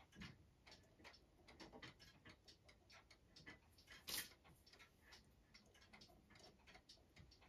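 Faint, steady ticking of a rack-and-snail striking clock's movement, a few ticks a second, with one sharper click about four seconds in.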